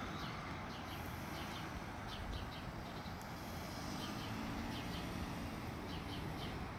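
Steady hum of street traffic, with small birds chirping in short, repeated calls.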